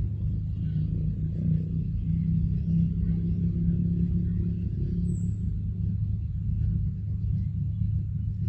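Steady low rumble with a low, even hum, like a motor running. A brief high chirp about halfway through.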